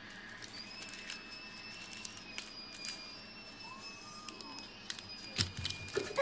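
Small packets being handled: scattered light clicks and rustles, with one louder thump near the end. A faint steady high-pitched whine sits behind them.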